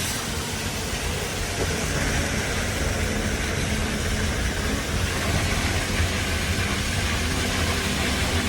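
Steady car running noise heard from inside the cabin while driving: a low engine and road rumble under an even hiss of tyres and air.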